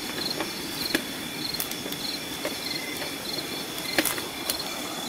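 Night insects calling: a short high chirp repeating about twice a second over a steady high trill, with a few sharp crackles of footsteps through leaf litter and undergrowth.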